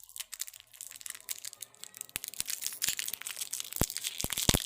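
Plastic wrapper of a ginger cough drop being crinkled and torn open: a dense crackling, with a few sharper snaps near the end.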